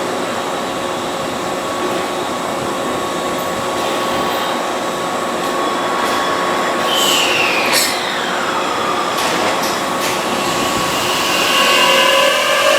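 Keihan electric train running at the station platform, a steady rail and wheel noise throughout. About seven seconds in, a motor whine falls steadily in pitch, with a few sharp clicks. Near the end, rising whines begin.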